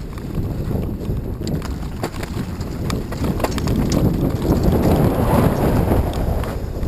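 Rumbling noise with scattered clicks and knocks, picked up by a GoPro's microphone through an open skeleton housing, growing louder about four seconds in.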